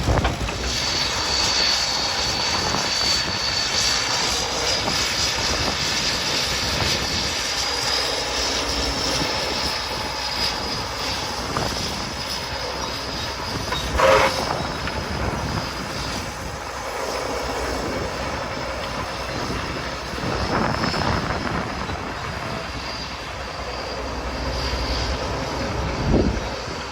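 Caterpillar D8 crawler tractor running under load as it pulls a scraper box, a steady engine drone with a thin high whine over it. A sudden sharp knock stands out about halfway through.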